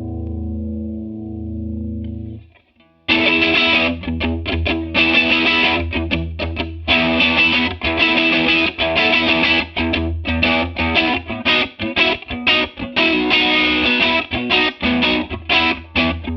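Electric guitar played through a TC Electronic Corona Mini Chorus pedal. A sustained clean chord with a chorus shimmer fades out in the first couple of seconds. After a short gap, a distorted, choppy stop-start chord riff begins.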